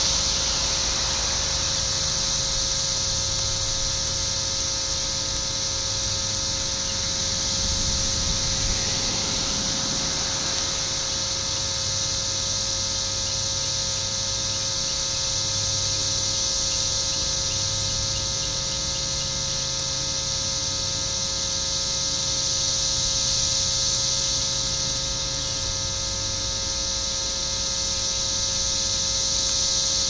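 Steady chorus of 13-year periodical cicadas: a continuous high buzz that never lets up. Under it runs a steady electrical hum with a row of evenly spaced overtones, picked up by the VLF loop receiver.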